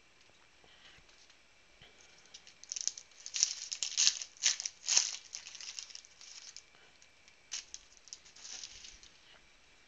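Foil wrapper of a Panini Prizm football card pack being torn open and crinkled: a dense run of sharp, irregular crackles, loudest a few seconds in, with a shorter flurry near the end.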